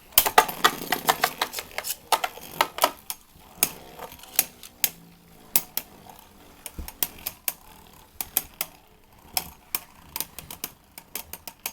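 Two Beyblade spinning tops, Mirage Fafnir F6 and Air Knight, battling in a plastic stadium. Their plastic hits on each other and on the stadium wall make sharp clacks, rapid in the first few seconds, then more scattered.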